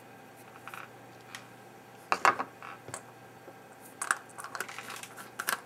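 Small hard objects clicking and clattering on a workbench as tools and parts are handled, in a few short irregular bursts.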